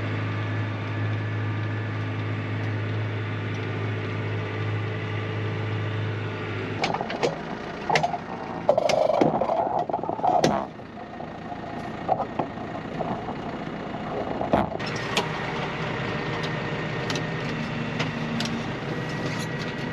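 Tractor engine running steadily, with a low hum that drops away about seven seconds in; a run of clicks and knocks, with a louder clatter, follows for about four seconds before the engine runs on steadily.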